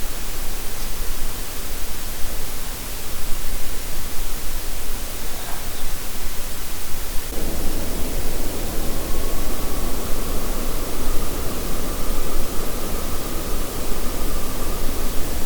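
Loud steady hiss of an outdoor night recording. About seven seconds in, a lower rushing noise joins it, and a little later a faint, long, slightly wavering tone sounds above the hiss for several seconds.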